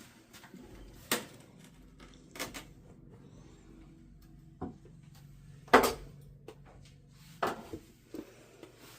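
A series of irregular knocks and thuds, six or so, spaced a second or more apart, with the loudest a little after halfway, over a faint low hum.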